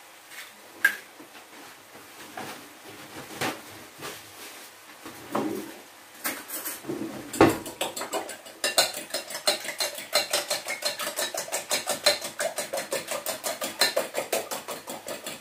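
A few separate clinks and knocks, then from about eight seconds in, raw eggs being beaten in a glass bowl: the utensil clicks against the glass in a fast, even rhythm, about four or five strokes a second.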